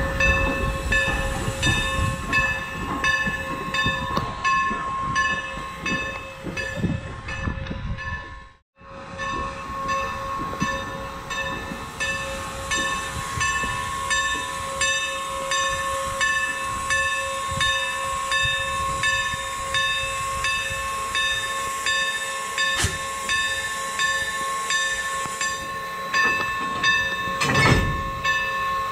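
Steam locomotive bell ringing steadily, struck about twice a second, over the low rumble of the Norfolk and Western 4-8-0 engine moving past. The sound cuts out briefly about a third of the way through. A short, loud rush of steam comes near the end.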